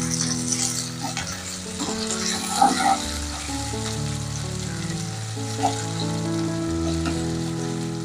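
Chopped shallots, garlic and bird's eye chilies sizzling in hot oil in a nonstick wok, with a spatula stirring and a couple of short knocks against the pan. Soft background music with held chords runs underneath.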